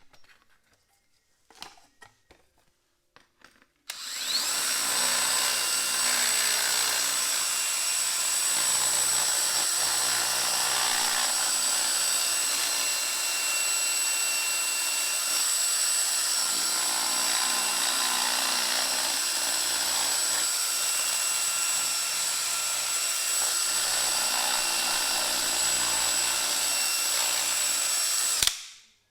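Small power grinding tool running steadily with a high whine as it grinds out a hole in a dash radio bezel for the cigarette lighter. It starts abruptly about four seconds in and cuts off sharply near the end, with only faint clicks before it.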